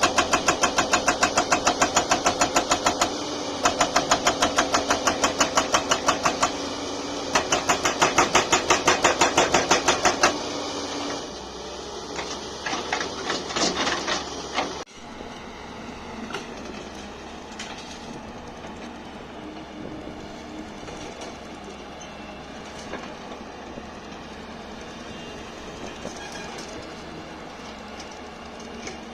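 Hydraulic breaker on a JCB excavator hammering with rapid, evenly spaced blows in three runs with two short pauses, stopping about ten seconds in. Then comes a few seconds of irregular clatter, and from about halfway a steadier, quieter machine noise.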